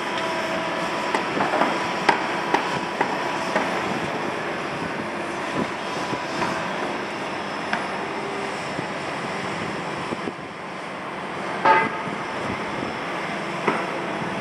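Steady city noise heard from high above the streets, mainly a constant hum of distant traffic, with scattered light clicks and a brief pitched sound about three-quarters of the way through.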